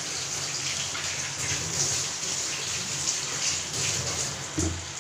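Macaroni and tomato sauce sizzling in a pan over a gas burner: a steady hiss with faint crackles, and a brief knock near the end.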